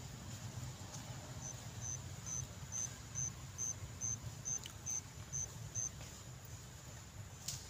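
An insect chirping: about eleven short, high, evenly spaced chirps, a little over two a second, over a steady low rumble. A single sharp click comes near the end.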